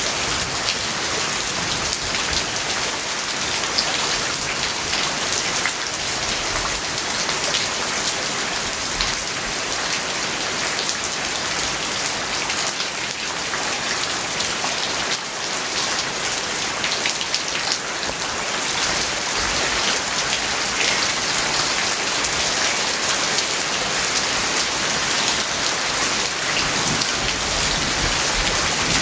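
Steady rain falling on a house's yard: a dense, even hiss with many small individual drop hits.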